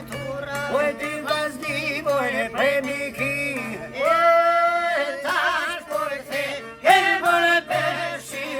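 A solo voice singing an Albanian folk song in a high, heavily ornamented line, with long wavering held notes, over a steady low drone.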